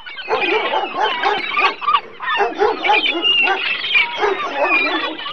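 Dogs barking and yipping: a rapid run of short, overlapping calls at several pitches.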